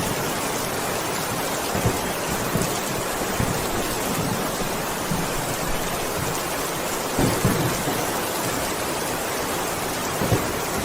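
Heavy rain falling steadily: a dense, even hiss, with a few brief low thuds about two, seven and ten seconds in.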